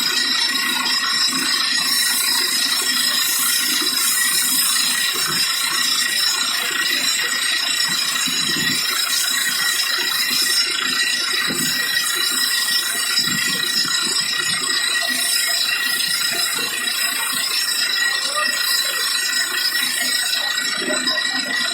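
Borewell drilling rig running steadily: a continuous mechanical rattle under a steady high whine.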